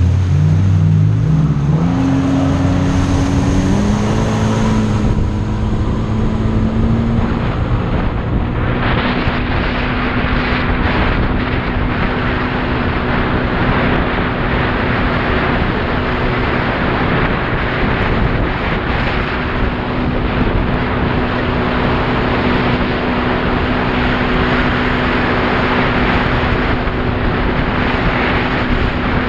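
Personal watercraft (jet ski) engine climbing in pitch over the first few seconds, then running steadily at cruising speed. About eight seconds in, a loud rush of water and wind noise comes up over the engine.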